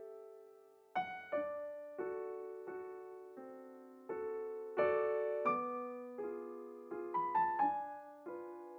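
Background music: slow solo piano, single notes and chords struck roughly once a second and left to ring out.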